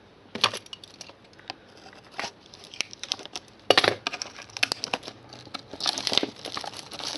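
Trading card pack wrapper being handled and torn open: irregular crinkling and tearing, loudest about four seconds in and again around six seconds.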